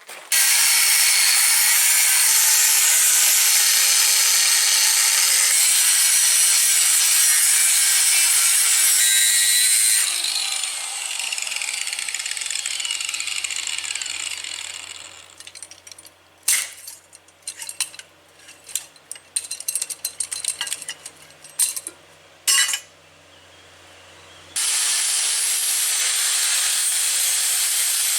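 Power tool cutting metal, running steadily, then winding down with a falling pitch about ten seconds in. Scattered clinks and knocks follow, and the tool starts cutting again near the end.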